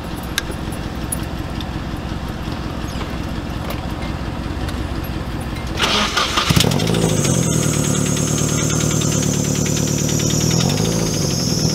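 Car engine cranking on the starter for about six seconds, then catching with a burst and running through a homemade welded exhaust, with two short revs and a thin high whine. The crew hears it fluttering and takes it for an exhaust leak, since exhaust manifold bolts have backed out of the head at the rear cylinder.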